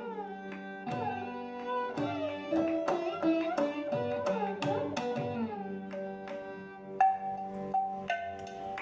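Instrumental background music: a melody of ringing, struck notes over drum strokes whose pitch slides down.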